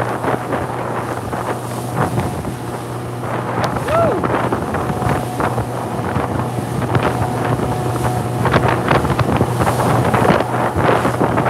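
Motorboat running fast through choppy water: a steady low engine hum under heavy wind buffeting on the microphone, with repeated splashes of spray and chop against the hull.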